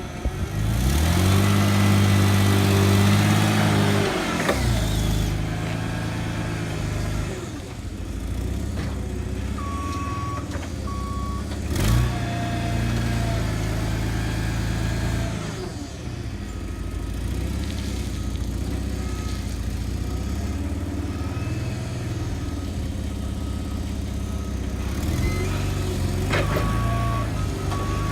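A heavy vehicle's engine running at a loading yard. It rises strongly over the first few seconds, then settles to a steady run. A vehicle reversing beeper sounds twice about ten seconds in and again near the end, and there is one sharp knock about twelve seconds in.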